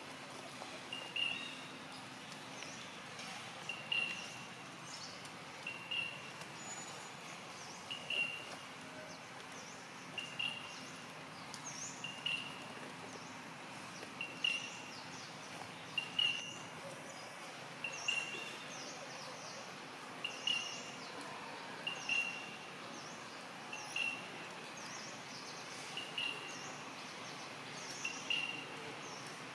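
A bird's short call, repeated about every two seconds at an even pace, over steady forest background hiss with fainter, higher chirps.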